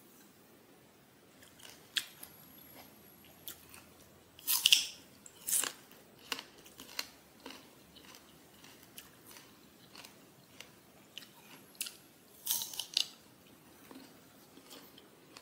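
A person eating breakfast close to the microphone: scattered crisp bites and chewing of sliced fruit, with light clicks of a fork against a ceramic plate. The loudest crunches come about four and a half seconds in and again near twelve and a half seconds.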